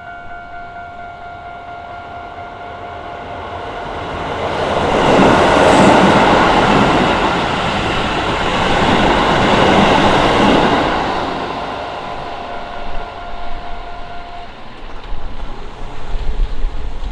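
An electric commuter train on the Keisei Main Line passes through a Japanese level crossing. The rail noise swells about four seconds in, peaks twice and fades out, while the crossing's electronic warning bell rings steadily in repeated pulses. The bell stops a few seconds before the end.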